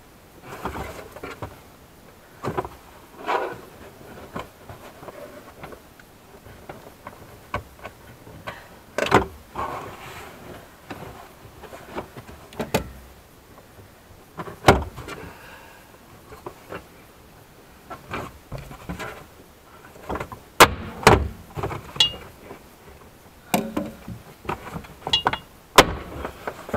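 Plastic rear luggage-compartment back trim panel of a Lexus IS200t being pulled loose by hand: scraping and rustling of the panel, with irregular sharp snaps as its push-in clip tabs pop free.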